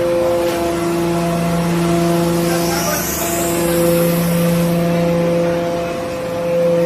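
Hydraulic metal-chip baler running, its pump unit giving a steady machine hum of several even tones.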